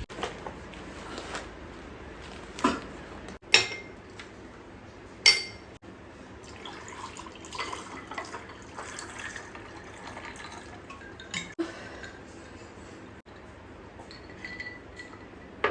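Glass jars being handled: scattered clinks and knocks of glass against glass and hard surfaces, the two loudest a few seconds in ringing briefly.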